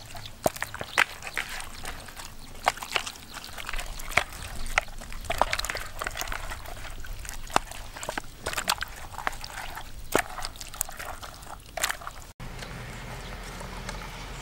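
Wet squelching and squishing of hands kneading a spice marinade into raw poultry pieces in a plastic basin, in quick, irregular squishes. About twelve seconds in, it cuts to a steadier low outdoor background.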